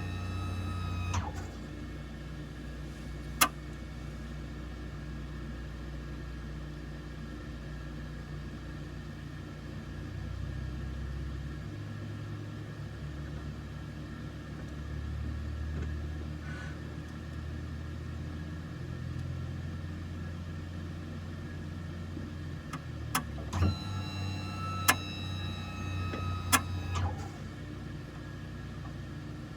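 Steady low cabin hum of a Cessna Citation CJ3, with a whining electric-motor-like tone in several pitches that cuts off about a second in and returns for a few seconds near the end, along with sharp clicks. These are the abnormal noises under question.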